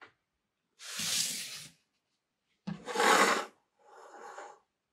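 Rubbing and scraping on a wooden tabletop: two loud scrapes about two seconds apart, then a softer one near the end as a grey plastic diorama base piece is slid into place.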